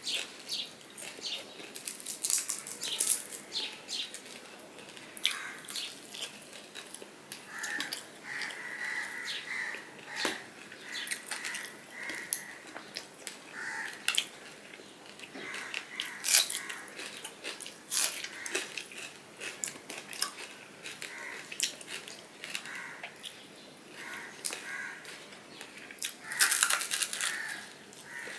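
Close-up eating sounds of a man eating fried hilsa fish with rice by hand: wet chewing with irregular lip-smacking clicks as he picks the fish off its bones.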